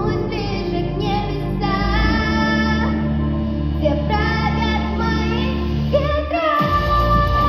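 A song: a high voice singing held, wavering notes over instrumental backing with a steady bass. The bass drops out briefly near the end, and the voice then holds a long note.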